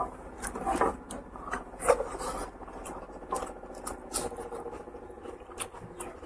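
A hand squishing and kneading rice with pork curry gravy, then a mouthful being eaten with wet chewing and smacking, as a run of irregular short smacks and clicks.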